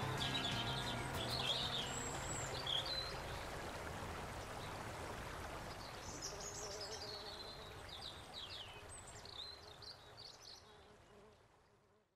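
Several birds chirping and trilling over a steady rushing background like flowing water, all fading out gradually to silence near the end. The last notes of music die away at the start.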